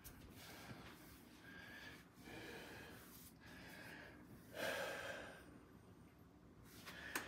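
Faint heavy breathing through the nose: a run of forced breaths about a second each, the loudest about halfway through, from a man holding flexed bodybuilding poses. A sharp click comes near the end.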